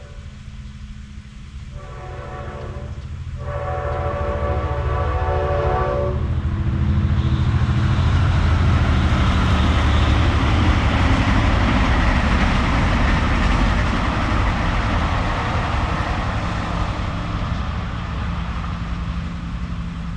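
Train horn blowing two blasts of steady stacked tones, a short one about two seconds in and a longer one of about three seconds, followed by the train passing close by: a loud rumble and rattle that swells, peaks around ten seconds in and slowly fades.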